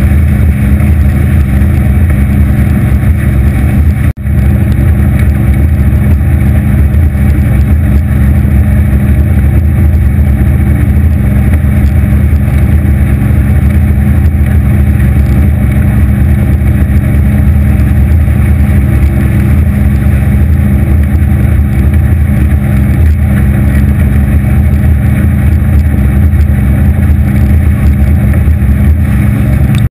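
A 250 hp Evinrude outboard running steadily at cruising speed, driving an Anytec 750 SPD aluminium boat over choppy water, heard as a loud, even drone of engine and hull noise. The sound drops out for an instant about four seconds in.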